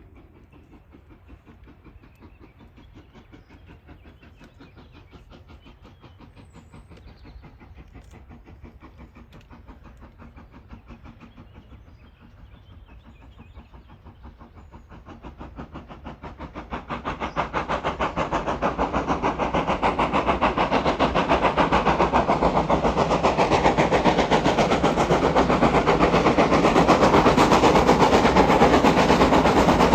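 GWR Grange class two-cylinder 4-6-0 steam locomotive working hard, its exhaust beating in a rapid, even rhythm. The beats are faint at first and grow loud from about halfway as the engine approaches.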